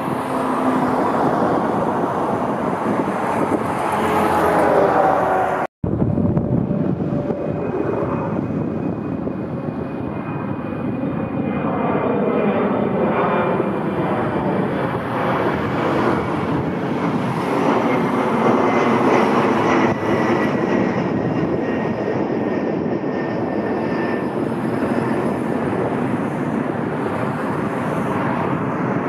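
Narrow-body jet airliner engines going by, a dense roar with a high whine that slowly falls in pitch as the plane passes. The sound drops out for an instant about six seconds in, then the jet noise carries on.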